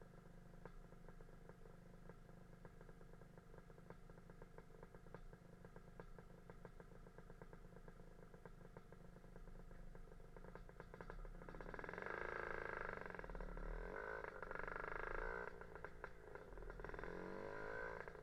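Lambretta scooter with a Casa Performance SSR265 two-stroke engine ticking over at low revs while stopped in traffic, then about twelve seconds in it is revved and pulls away, getting louder as the revs rise and fall.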